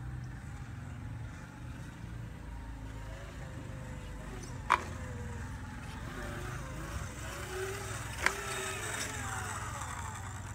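Electric mini motorcycle's motor whining up and down in pitch as it is ridden, over a steady low rumble, with two sharp clicks about five and eight seconds in.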